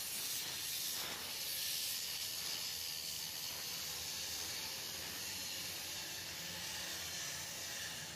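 Steady hiss with no pitch, strongest in the upper range and even throughout: the background noise of a working shipyard.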